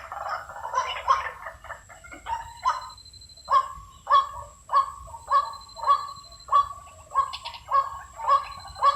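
White-breasted waterhen calls: a jumble of harsh overlapping notes for the first couple of seconds, then a steady series of clipped repeated notes, a little under two a second.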